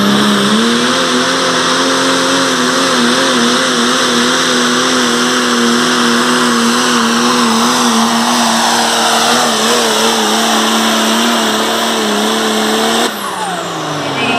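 Pro Stock diesel Dodge Ram pickup engine at full throttle under load as it pulls a sled: a loud, steady drone that climbs in pitch about half a second in and wavers slightly mid-pull. It cuts off suddenly about a second before the end.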